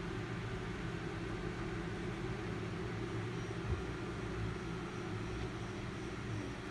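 A steady low machine hum, with one brief click a little past halfway.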